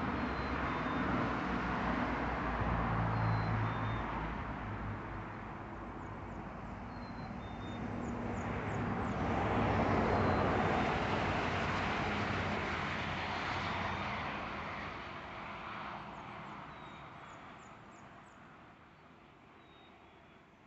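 Vehicles crossing the bridge: tyre and engine noise swelling, loudest about halfway through, then fading away near the end. Birds chirp faintly in brief high notes throughout.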